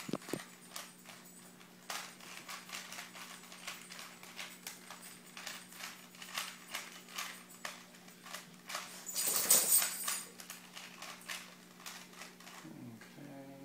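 Rubik's Cube being turned fast by hand: a quick, irregular run of plastic clicks and clacks as the layers snap round, with a louder rustle about nine seconds in. A faint steady hum runs underneath.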